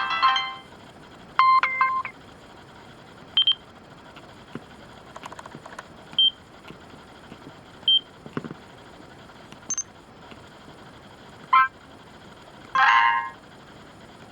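Casio EX-ZS5 digital camera's built-in sound effects played one after another: short electronic beeps and chimes separated by pauses, with a quick multi-note jingle near the end.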